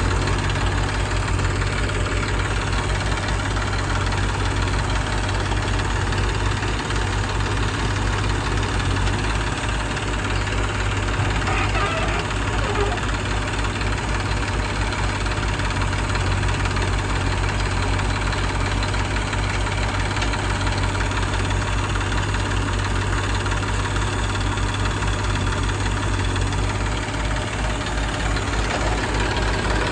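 JCB 3DX backhoe loader's diesel engine running steadily, with a fast, even low throb.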